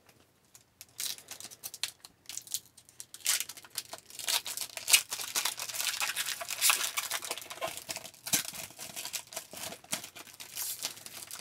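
Foil wrapper of a hockey trading-card pack crinkling and tearing as it is ripped open by hand, after a few light handling clicks; from about three seconds in the crinkling is dense and steady.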